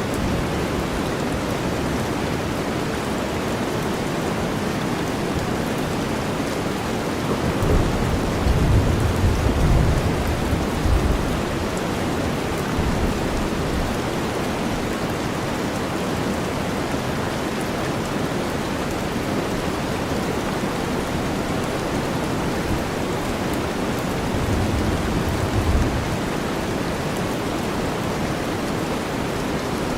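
Steady rain mixed with deep white noise, an even hiss. Thunder rumbles low twice: a longer roll about eight seconds in, and a weaker one about twenty-five seconds in.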